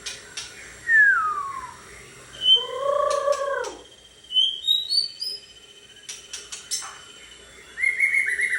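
White-rumped shama singing a varied song: a falling whistle, a long arching mew-like note, a string of rising whistles, sharp clicks, and a quick run of notes near the end.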